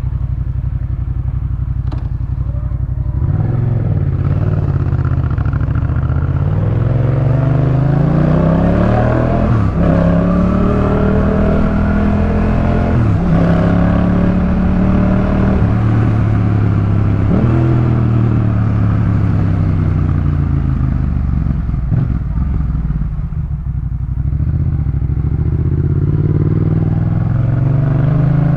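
Yamaha MT-07's 689 cc parallel-twin engine through a Jeskap K4 full exhaust system. It runs low and steady for about three seconds, then pulls up through the gears: the pitch climbs and drops sharply three times at the shifts, eases off, and climbs again near the end.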